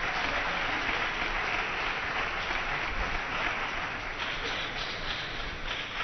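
Spectators applauding steadily after a point in a table tennis match, the clapping easing a little in the second half.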